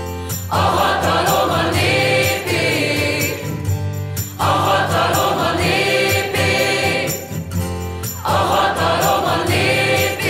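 Outro music: a group of voices singing a short phrase over a steady backing, the phrase repeating about every four seconds.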